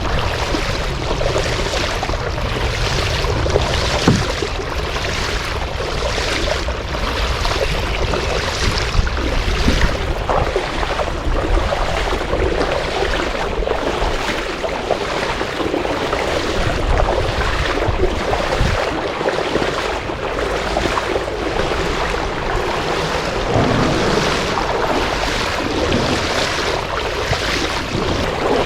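Wind blowing over the microphone along with the wash of waves, a steady rushing noise with faint regular pulses about one and a half times a second.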